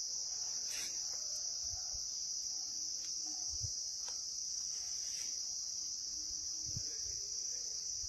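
Steady, high-pitched insect chorus that never lets up, with a few faint low bumps under it.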